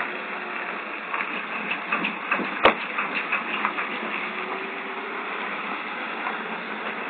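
Steady hiss from a low-quality security-camera microphone, with scattered light knocks and one sharp knock a little under three seconds in as things are loaded into a car boot. A vehicle engine runs faintly as a flatbed truck drives in.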